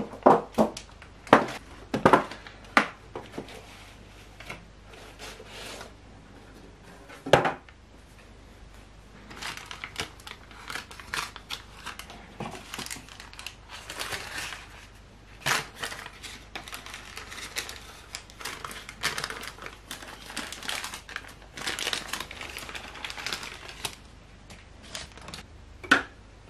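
Baking paper crinkling and rustling as it is handled and peeled off a pandan sponge cake, with a few sharp, loud crackles in the first few seconds and a long run of fast crinkling in the middle.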